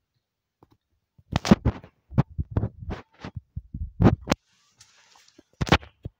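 Handling noise on a phone's microphone: a quick run of dull thumps and knocks from about one to four and a half seconds in, a brief rustle, then two more thumps near the end.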